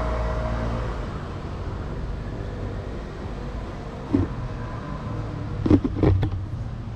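An orange kitten mewing: one short call about four seconds in, then three quick calls close together near the end. A passing vehicle's engine hum fades out about a second in.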